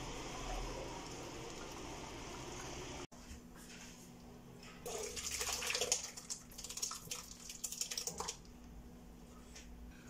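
A steady bubbling hiss from a steel pot of tomatoes at a rolling boil. After a sudden cut, hot cooked tomato pulp is poured from the pot into a plastic strainer bowl, a loud wet splashing and slopping for about three seconds that then dies down.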